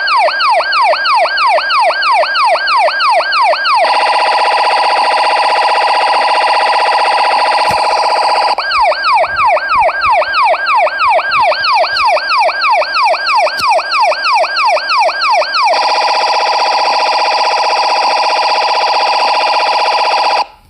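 Electronic police siren alternating between a fast yelp, about three rising-and-falling sweeps a second, and a steady rapidly pulsing tone. It switches from yelp to the pulsing tone about four seconds in, back to the yelp near nine seconds, to the pulsing tone again near sixteen seconds, and cuts off suddenly near the end.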